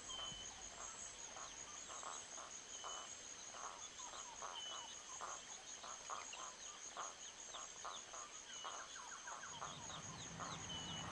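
Quiet farmyard ambience: hens clucking in short, irregular notes, several a second, under a steady, high, pulsing insect trill and occasional brief bird chirps.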